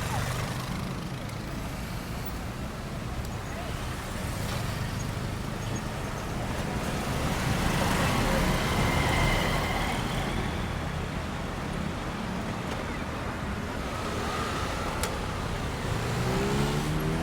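Road traffic: a steady rumble of engines and tyres, swelling as a vehicle passes close about halfway through.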